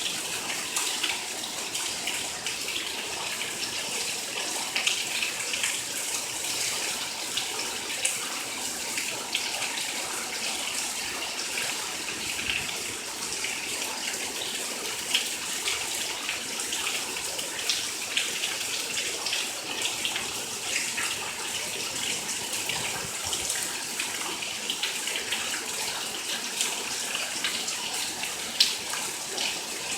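Rain falling steadily, with many small drop splashes over a continuous wash of water.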